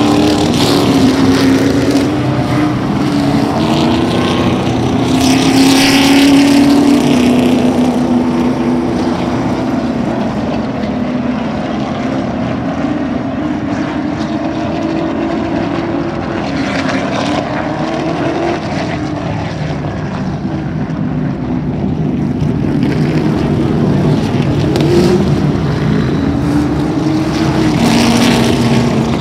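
Late model stock cars' V8 engines racing around an asphalt oval, a continuous drone that rises and falls in pitch as cars pass. It swells several times and is loudest about six seconds in and again near the end.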